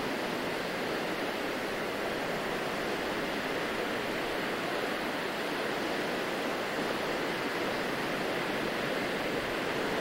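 Small waves washing onto a sandy beach: a steady, even wash of surf with no single breaker standing out.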